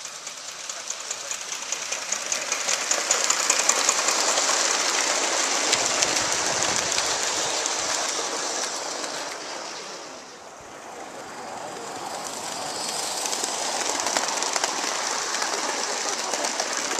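Gauge 1 live-steam model trains running past on garden track: a rapid, continuous run of exhaust beats and wheel clicks. The sound swells as one train passes about four seconds in and fades away, then swells again as a second train comes by near the end.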